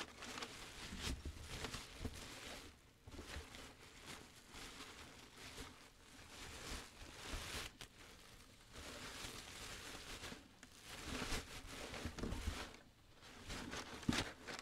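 Faint, irregular rustling of plastic trash bags being pulled and shifted by hand.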